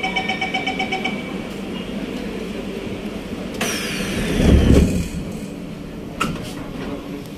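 Metro train door-closing warning: rapid repeated beeps for about the first second, then a rush of noise with a falling whine about 3.5 s in, ending in a heavy thud as the doors slide shut. A sharp click follows near the end.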